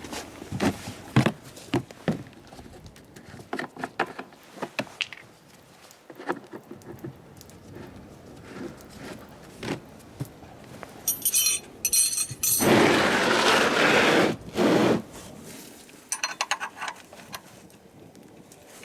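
Metal hand tools clinking and knocking as they are handled, with a rasping jangle a little past the middle, then a loud scraping noise lasting about two seconds.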